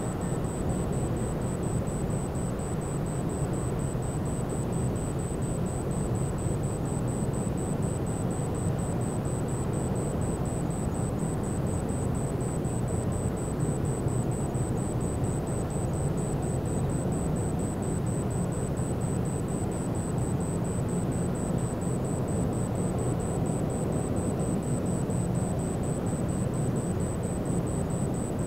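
Steady low rumble of a large car ferry leaving port, with a faint high pulsing tone running through it.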